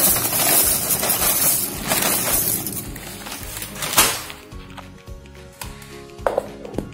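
Dry cornflakes pouring into a steel mixer-grinder jar, a dense rattling crackle of flakes on metal that ends with a clink about four seconds in. After that, background music with a few light knocks.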